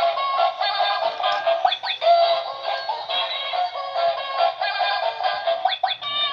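Electronic toy cat playing a thin, tinny electronic song with a synthesized singing voice, with a quick upward sweep about two seconds in and again near the end.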